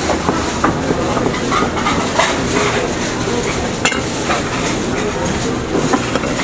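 Large noodle knife chopping folded kalguksu dough against a floured wooden board: a quick run of taps in the first second, then a few scattered knocks, one as the knife is laid down about four seconds in. Under it, a steady kitchen and market din.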